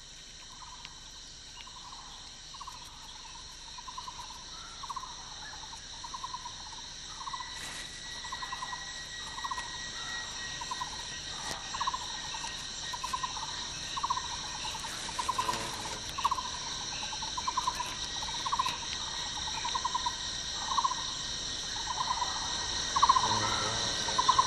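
Forest insect chorus: a steady high-pitched buzzing of insects, with a short trilling call repeated about once a second that grows steadily louder.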